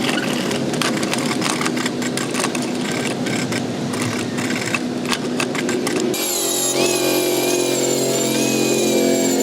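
A small engine running, rough and clattering at first; about six seconds in the sound changes abruptly to a steadier, pitched running note.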